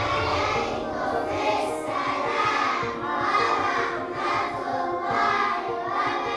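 Music with voices singing together over held accompanying notes, the melody rising and falling in swells about once a second.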